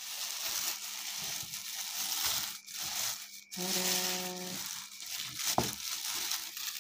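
Thin plastic carrier bags crinkling and rustling as they are pulled open and unwrapped by hand. A short steady hum sounds just past the middle, and a sharp click follows it.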